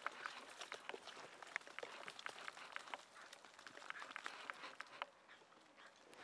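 Faint, irregular light ticks and patters from two wet dogs moving about on a dry dirt path.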